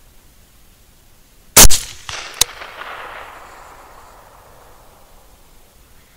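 A single 6.5 Grendel rifle shot about one and a half seconds in, its report echoing away over a couple of seconds. A second sharp crack comes just under a second after the shot.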